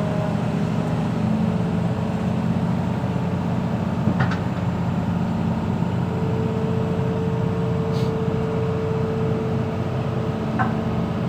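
Excavator diesel engine running steadily, with a higher steady whine for a few seconds past the middle and a few brief clicks.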